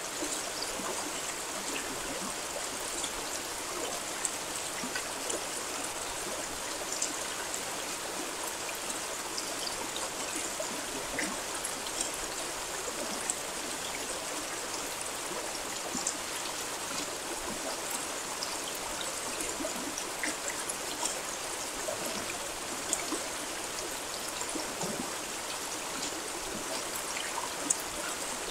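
Steady rain falling, an even hiss with many single drops ticking sharply through it.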